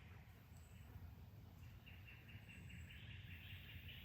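Faint outdoor ambience: a low steady rumble, joined about halfway through by a steady high trill.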